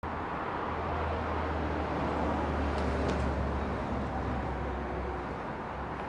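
Steady vehicle noise: a low drone under a broad, even rumble, with a couple of faint high ticks about three seconds in.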